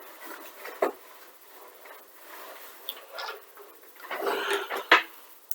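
Handling noise: objects being moved about and set down, with a click about a second in, some rustling, and a sharp knock near the end.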